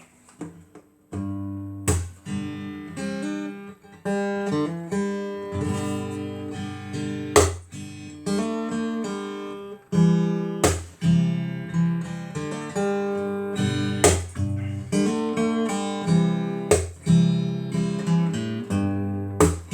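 Acoustic guitar being strummed and picked through a run of chord changes, with sharp strums every second or so. It starts about a second in and is played without singing, as the lead-in to a song.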